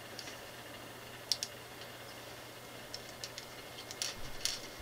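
Scattered light clicks of plastic LEGO bricks being picked up and pressed together by hand, a few at a time with pauses between, over a faint steady hum.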